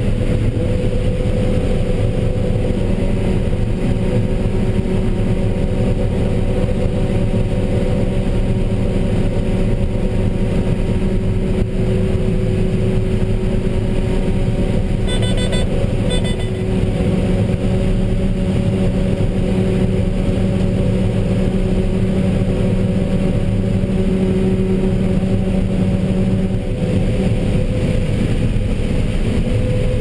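Steady drone of a John Deere 9770 combine heard from inside its cab while harvesting corn with a 12-row corn head, with several steady humming tones in the machine noise. A brief run of high-pitched pulses about halfway through, and one low hum drops out near the end.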